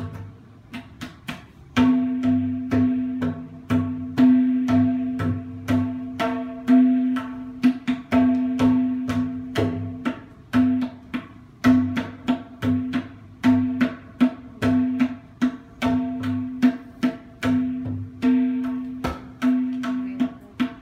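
Tabla solo: fast strokes on the tuned right-hand drum (dayan) ringing at one steady pitch, mixed with deep bass strokes on the left-hand drum (bayan). A few scattered strokes at first, then a dense, quick rhythm from about two seconds in.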